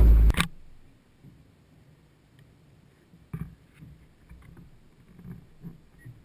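Loud voices cut off about half a second in. After that it is near silence, with a few faint, soft knocks and rustles.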